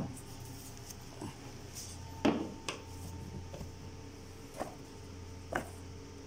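Handling knocks and clicks as a test lung is fitted to the ventilator's breathing circuit: four sharp knocks, the loudest about two seconds in, over a steady low hum.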